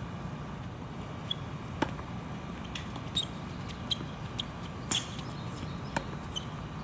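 Tennis ball struck by rackets and bouncing on the court during a point: a few sharp pops, each a second or more apart, over a low steady background rumble.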